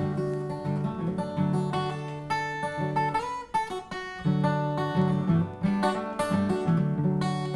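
Acoustic guitar played while a man sings along, with a brief dip in the music about halfway through.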